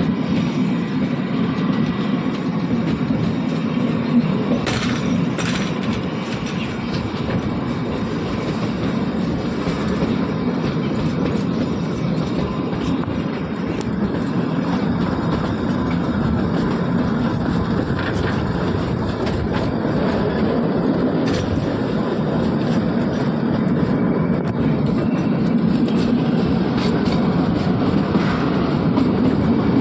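Narrow-gauge Kalka–Shimla toy train running along the track: a steady rumble of wheels and carriages, with a few sharp clicks and knocks from the rails.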